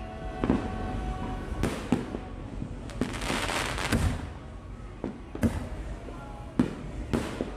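Fireworks going off: a string of sharp bangs at uneven intervals, with a stretch of dense crackling about three to four seconds in.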